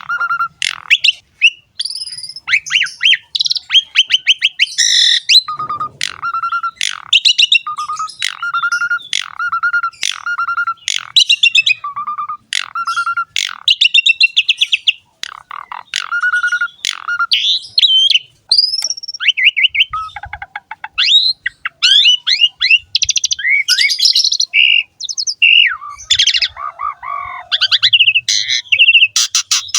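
Pied starling (jalak suren) singing loudly and continuously: a run of short, hoarse, rattling notes repeated about once a second, giving way about two-thirds of the way through to a more varied mix of whistles and rattling phrases.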